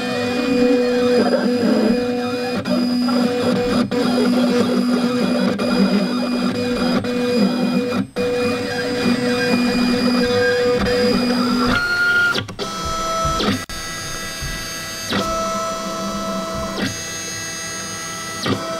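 Black Cat Lynx craft cutter cutting cardstock: its motors whine in held tones that shift pitch in steps as the blade head moves. The tones change to higher ones in the last third, with short breaks about 8 and 13 seconds in.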